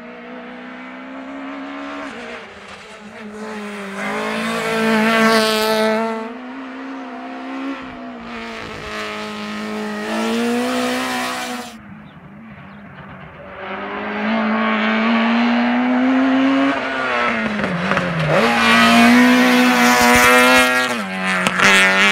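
Hill-climb race car engine revving hard up the course, its pitch climbing and dropping again and again with gear changes and lifts for the bends. It grows loudest in the last few seconds, with a sharp drop in revs just before.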